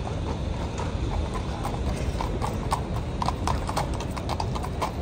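Hooves of two horses clip-clopping on stone paving, the strikes growing louder and more frequent from about a second and a half in, over steady low street noise.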